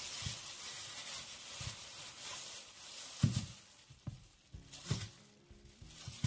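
Plastic bag rustling as hands pick white garden eggs out of it, with a few short knocks as the garden eggs are handled and set on a plastic chopping board.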